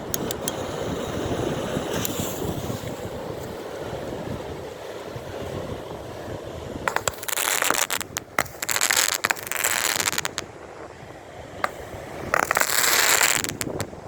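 Wind on the microphone and surf on a beach, then from about halfway several loud bursts of hiss with sharp crackles in them.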